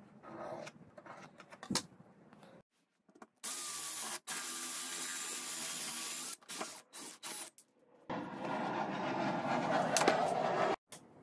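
A pencil scratching along a steel ruler, then a power drill with a hole saw running and cutting a round hole through a wooden board: two steady runs of about three seconds each, with a few short bursts between them.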